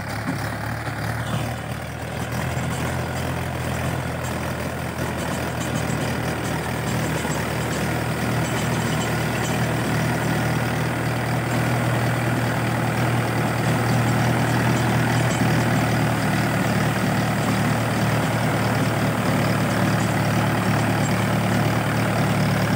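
Mahindra 575 DI tractor's four-cylinder diesel engine running steadily under load while pulling a rotavator through the soil, growing louder as it draws closer.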